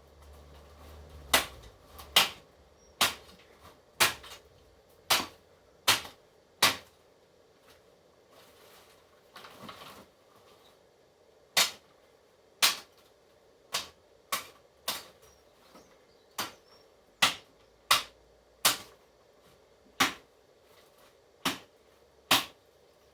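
A run of sharp cracks or snaps, roughly one a second, with a pause of about four seconds near the middle. This fits pruning or chopping work on a tree.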